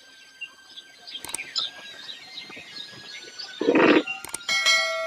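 Small birds chirping on and off. A short, loud burst of noise comes about three and a half seconds in, and a brief high tonal sound near the end.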